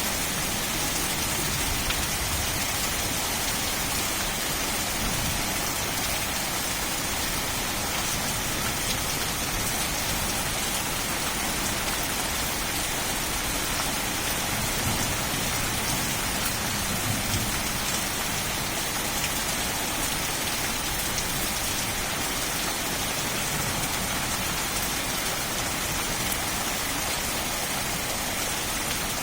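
Steady rain falling on forest leaves: an even, unbroken hiss with scattered individual drop ticks.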